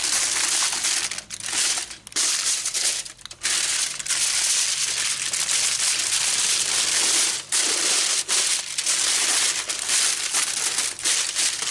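Aluminium foil crinkling and crumpling as it is folded and wrapped around a rack of ribs, with a few short pauses.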